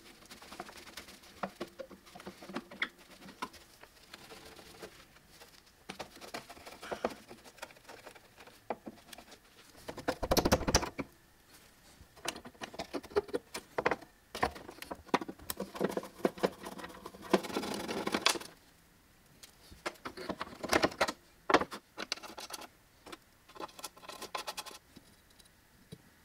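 Hand work on the door mechanism of a Triumph TR4 steel door: scattered clicks, taps and scrapes of a screwdriver, screws and a small circlip against the metal. A few louder scraping stretches come near the middle.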